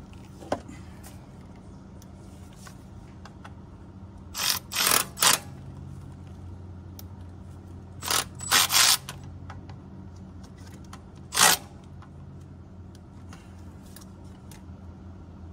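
Cordless ratchet running in short bursts as it tightens the nut on a tractor's throttle bracket: three quick bursts about four seconds in, three more about eight seconds in, and a single one near eleven seconds. A faint steady hum runs underneath.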